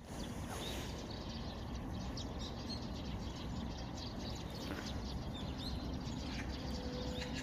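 Outdoor ambience: a steady low rumble with a few faint, scattered bird chirps.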